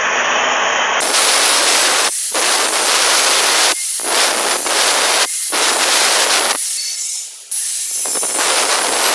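Angle grinder with a thin cut-off disc cutting through stainless steel round pipe: a loud, steady, hissing grind. The sound dips briefly about every second and a half and eases off for about a second near the end.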